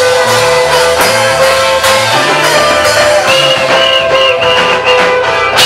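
Gospel band music with guitar, bass and drums playing a steady beat.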